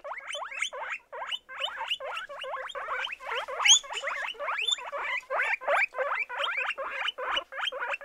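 Guinea pig squeaking: a rapid, unbroken run of short upward-sliding squeaks, about four a second.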